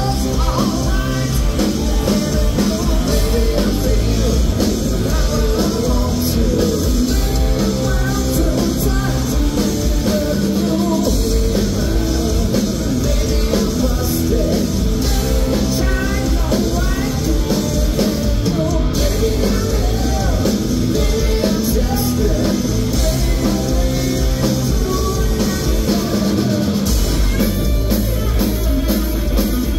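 Loud live rock performance by a guitar, bass and drums trio: electric guitar, electric bass and a large drum kit playing together through a club PA.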